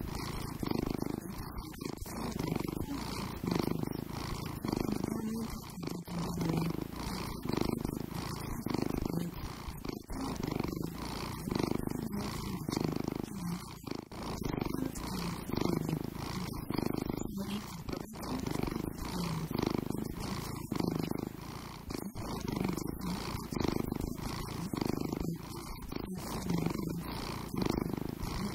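Domestic cat purring close up, a low steady purr that swells and fades in even cycles about once a second.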